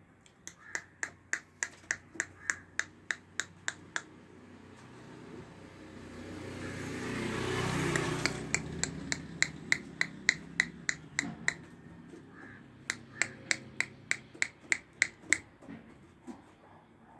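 Three runs of sharp, evenly spaced clicks, about three a second, with short pauses between runs. A broad rushing noise swells and fades between the first and second runs.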